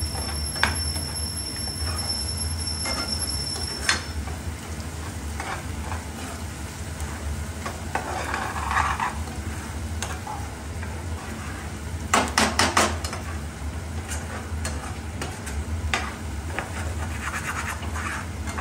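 A spatula stirring and scraping in a non-stick kadai of peas, onion and garlic frying in ghee, with a soft sizzle and repeated taps of the spatula on the pan. A cluster of sharper knocks comes about twelve seconds in.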